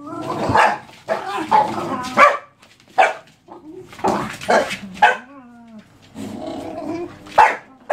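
Dogs barking in rough play: a Jack Russell terrier and two bull-breed pups, with sharp barks about once a second and a short whine about five seconds in.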